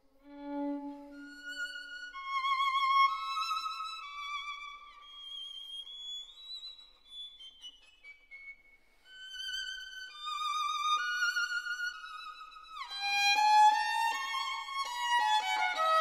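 Background music: a violin playing a slow melody with vibrato, which turns into a busier run of sliding, overlapping notes in the last few seconds.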